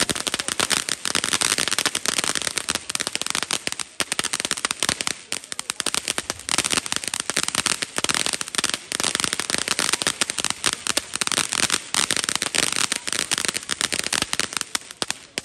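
Firecrackers going off in a fast, unbroken crackle of sharp pops, with a few brief lulls.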